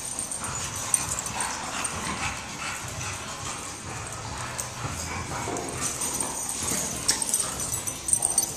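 English bulldog puppies play-fighting, making small dog vocal noises, with paws scuffling and clicking on a concrete floor and a few sharp clicks.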